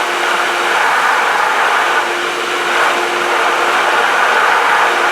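Pool pump running with water rushing through the plumbing: a loud, steady hiss with a faint steady hum under it.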